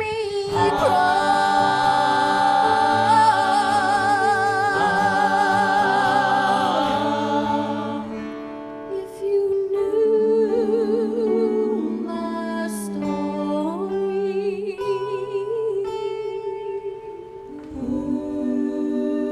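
Wordless ensemble singing in harmony: several voices hold long chords with vibrato over soft accompaniment, briefly falling away about eight seconds in and again near the end before a last chord is held.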